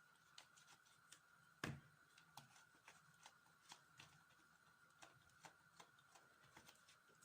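Faint, scattered scrapes and small clicks of a coring knife hollowing out small eggplants, with one sharper knock about one and a half seconds in. A faint steady high hum lies under it.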